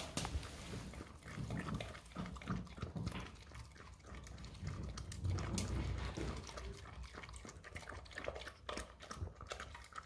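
Dog eating a raw egg from a stainless steel bowl: wet lapping and chewing, with scattered short clicks against the metal bowl.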